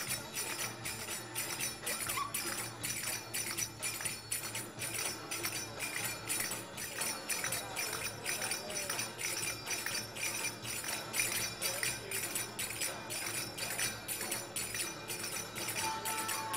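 Belly dance music with a quick, steady beat and bright metallic jingling over it.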